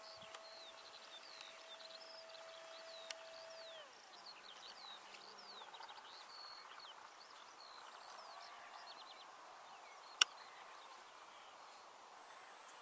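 Birds chirping, many short falling notes, over a faint outdoor background. Under them a steady high whine glides down and stops about four seconds in. A single sharp click comes about ten seconds in.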